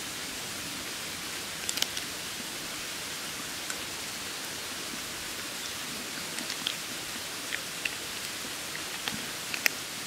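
Steady even hiss of outdoor background noise, with scattered faint clicks and small cracks as a cooked Japanese mitten crab's shell and legs are picked apart by hand.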